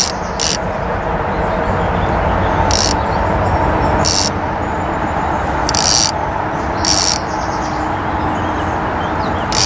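Outboard motor running steadily at a slow trolling speed. About six short, high-pitched rasps come at uneven intervals over the hum.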